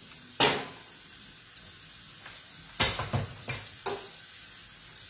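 Mortadella frying in butter in a pan, a steady low sizzle, with several sharp knocks from kitchen things being handled and set down: one about half a second in and a quick cluster around three seconds in.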